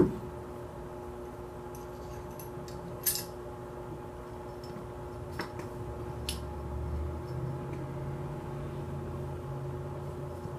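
Small metal and polymer AR-15 parts clicking and clinking lightly as they are handled and set down, a few separate clicks. A single sharp thump at the very start is the loudest sound, over a steady faint hum.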